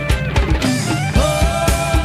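Background music: a rock track with a steady beat.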